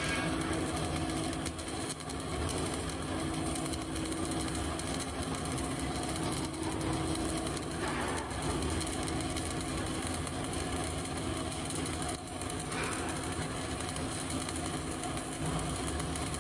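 CO2 MIG welding arc running a vertical-up (3G) weld bead: a steady frying buzz, dipping briefly twice.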